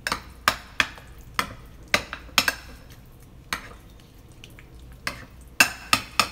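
Metal spoon stirring and mashing soft eggplant mash in a ceramic bowl: irregular clinks and scrapes of the spoon on the bowl, about two a second, with the wet sound of the mash being turned.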